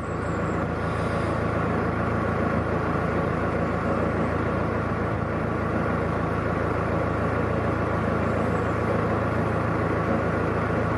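Narrowboat engine running steadily at low speed as the boat moves slowly along the canal.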